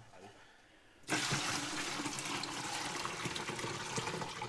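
Water running steadily into a container, starting suddenly about a second in, with a few small clicks in it.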